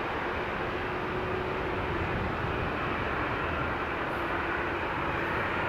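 Airbus A330-300's twin jet engines at take-off power, a steady rumble heard from behind the aircraft as it accelerates down the runway, with a faint steady whine over it.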